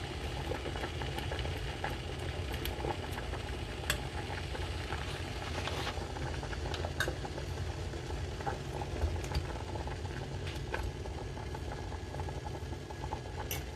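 A steel pot of water at a rolling boil with rice noodles cooking in it: steady bubbling over a low rumble, with a few light clinks of a metal fork against the pot.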